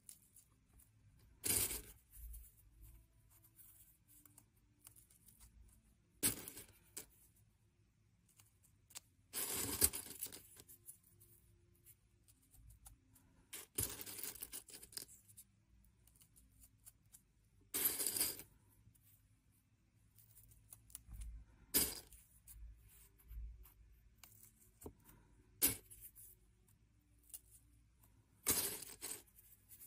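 Sunflower seeds clicking and rattling on a plate as fingers pick through them and press them into a raw potato. The sounds come in short bursts every few seconds, with quiet gaps between.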